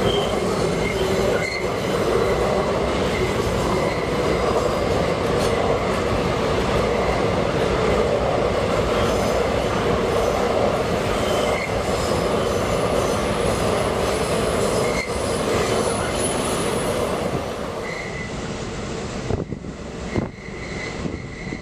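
Loaded double-stack container well cars rolling past: a steady rumble of steel wheels on rail, with wheels squealing now and then. The rolling noise drops away near the end as the last car passes.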